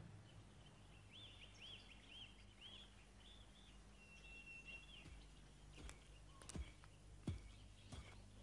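Faint bird chirps, a quick run of short arched calls and one longer held whistle. From about six seconds in they give way to sharp knocks about 0.7 s apart, a wooden pestle pounding in a mortar.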